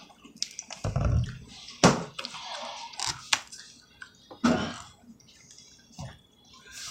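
Scattered handling and eating noises: a dull knock, several sharp clicks and a few short rustling bursts at uneven intervals.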